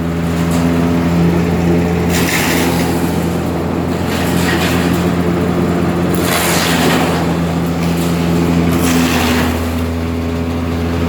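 Wood chipper's engine running steadily at speed, with four brief surges of rushing, higher-pitched noise about every two seconds.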